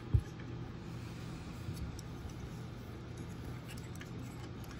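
A single dull thump just after the start, then faint handling clicks as the small robot kit chassis is moved about on the desk, over a steady low hum.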